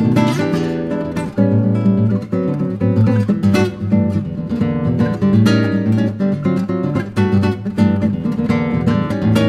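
Background music: acoustic guitar strumming.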